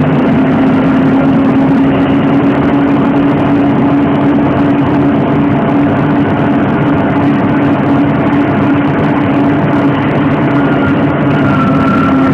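Vehicle engine running at a steady speed, heard from on board: a loud, constant droning hum. A faint higher whine joins near the end.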